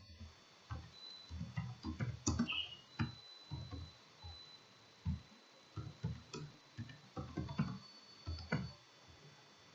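Irregular, faint taps and clicks of computer keys and a mouse as text is typed in, with short pauses between bursts.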